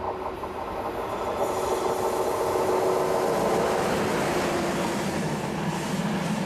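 Electric passenger train passing close by, a locomotive hauling a line of coaches over the rails. The sound swells over the first second or two, with a steady whine while the locomotive goes by, then the rushing and rumbling of the coaches' wheels.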